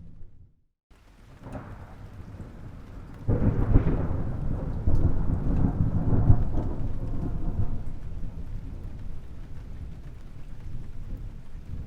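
Rolling thunder: after a brief silent break near the start, a low rumble builds, breaks into a loud crash about three seconds in, then rumbles on and slowly fades.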